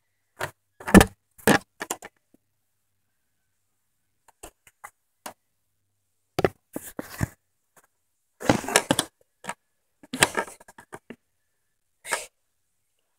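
A series of irregular knocks, clunks and rattles in short clusters, with silent stretches between them. It sounds like objects being knocked and handled close to the microphone.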